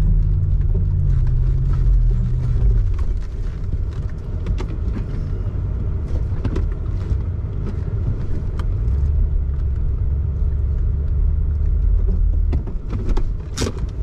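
4WD's engine drone heard from inside the cabin as it pulls through soft sand. The note drops about three seconds in and picks up again later. Short knocks and rattles from the body and load come through throughout.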